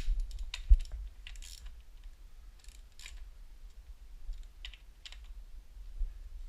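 Scattered light clicks and taps, as of small parts or tools being handled, with a couple of heavy low thumps in the first second.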